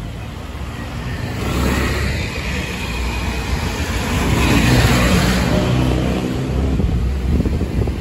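Street traffic, with a jeepney's engine passing close and building to its loudest about halfway through.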